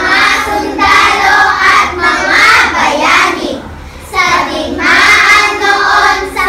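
A group of children reciting a Filipino poem in unison, in a chanted, sing-song chorus, with a short pause about four seconds in.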